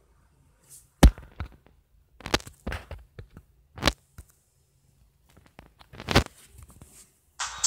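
A series of sharp knocks or taps, about half a dozen, spaced irregularly with quiet gaps between them. The first is the loudest, and there is a longer pause before the last.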